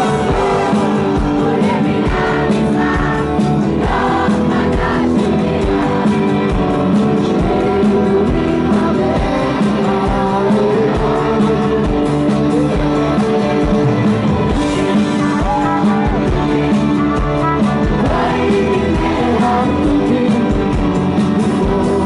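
A live rock band playing loud: a man singing over electric guitars and drums.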